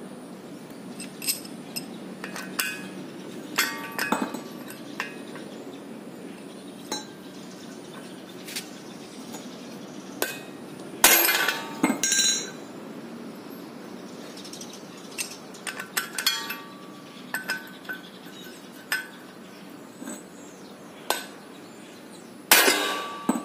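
Hammer blows on a steel socket and bar set against a car's front wheel hub, driving the hub out of the wheel bearing in the steering knuckle. Irregular light metallic taps with a few heavy, ringing strikes, the heaviest about halfway through and again near the end.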